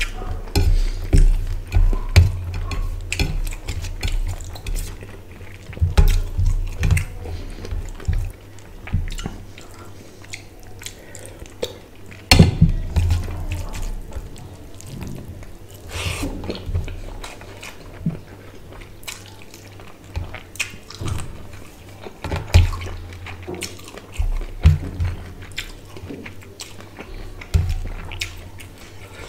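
Close-miked eating by hand: fingers squishing and mixing rice with wet fish curry on a steel plate, with irregular clicks and knocks against the metal, and chewing in between.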